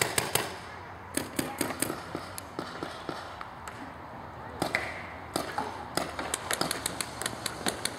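Paintball markers firing across a field: sharp pops in quick bursts, several shots close together in each, with short lulls between.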